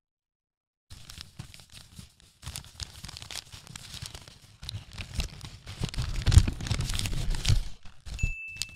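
Crumpled brown kraft packing paper being rummaged through, scrunched and pulled out of a cardboard box by hand: a dense crackling that starts about a second in and grows louder toward the end.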